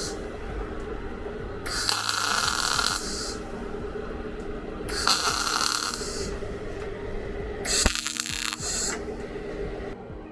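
Three hissing bursts from a shop tool, each lasting about a second, over a steady low machine hum.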